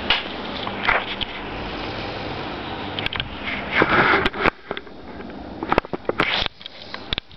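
A sleeping person snoring, with one loud noisy breath about four seconds in, followed by several short clicks and sniffs.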